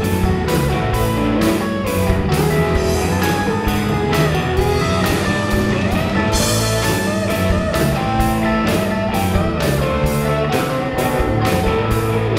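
Rock band playing: electric guitar over drums keeping a steady beat of about two hits a second.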